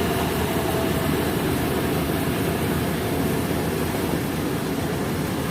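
Kubota DC70 rice combine harvester's diesel engine running steadily under load.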